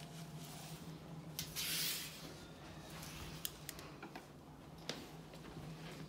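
A hand spray bottle squirting once, a short hiss about a second and a half in, among a few sharp clicks and knocks of handling, over a steady low hum.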